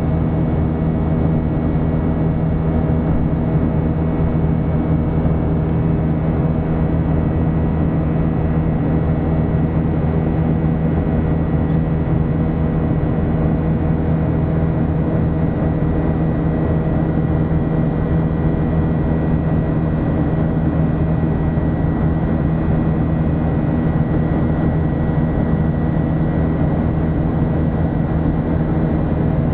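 Boeing 737 jet engines heard from inside the cabin during climb-out: a loud, steady drone with a thin, constant high whine over it.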